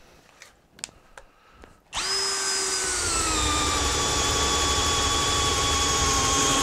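Cordless drill starting about two seconds in and boring a 1½-inch spade-bit hole through a doubled-up 2x4. Its motor whine drops in pitch as the bit bites into the wood, then holds steady under load. Before it come a few faint clicks as the bit is set in place.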